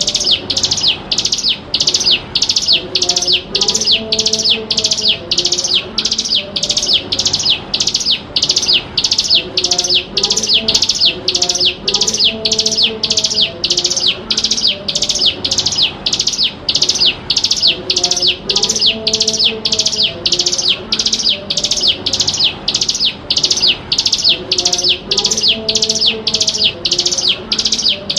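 Ciblek gunung, a prinia, giving a rapid, unbroken series of high chirping notes, about two a second, as a lure call for training young birds. Fainter low tones come and go underneath.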